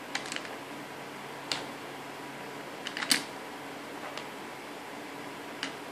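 Small plastic LEGO Technic pieces clicking and clacking as they are pulled out of the puzzle frame and set down on a wooden table: a few scattered sharp clicks, the loudest about three seconds in, over a steady background hiss.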